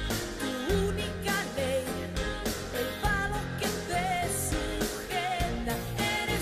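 Spanish-language pop song: a woman's lead vocal, wavering on held notes, over a band with a steady bass line and drums.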